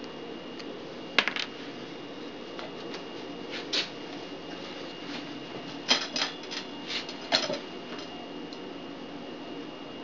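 A few light clicks and clinks of small hard objects, in two short clusters, over a steady hum with a thin high whine.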